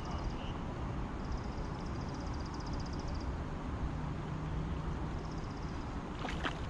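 Steady outdoor background noise by a stream, a low rushing haze, with several bursts of a rapid, high, pulsing trill. A short crackle comes near the end.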